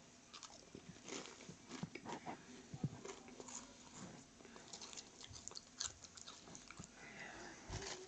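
Someone chewing crunchy Lay's Cheesy Garlic Bread potato chips: faint, irregular crunches and mouth clicks.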